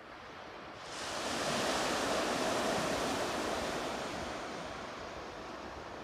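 Sea surf on a pebble beach: a wave breaks about a second in, its rush of foam swelling quickly and then fading slowly over the next few seconds.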